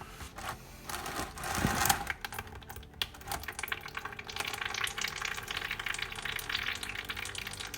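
Engine oil running and spattering out as the oil filter is spun off its mount: a continuous fine patter of drips and trickling, with a few knocks from handling the filter in the first two seconds.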